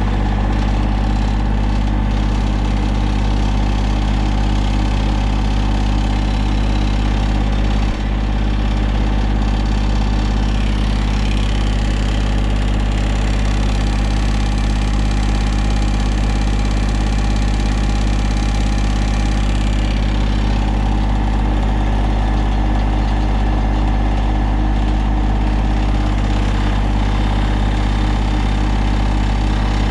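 Massey Ferguson GC1720 compact tractor's three-cylinder diesel engine running steadily at idle.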